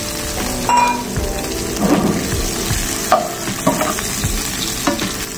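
Fried chicken pieces sizzling in hot oil in an aluminium frying pan, with a steel ladle stirring and scraping against the pan several times.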